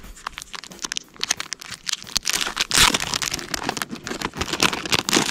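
Clear plastic packet crinkling and crackling as it is opened and a sheet of adhesive lead tape is slid out, in a dense irregular run of crackles that is loudest about three seconds in and again near the end.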